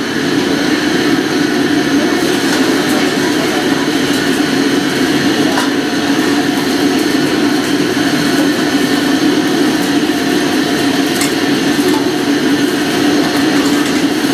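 Steady roar of a commercial Chinese wok range, the high-output gas burner and kitchen extraction, with a few light clicks of a metal ladle against the wok during stir-frying.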